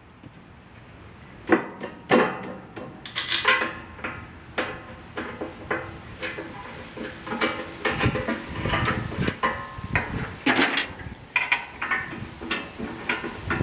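Irregular metal clanks and knocks of hand tools and metal parts being handled on a mini excavator during repair work, some hits ringing briefly. The knocks begin about a second and a half in and come thick and fast from there.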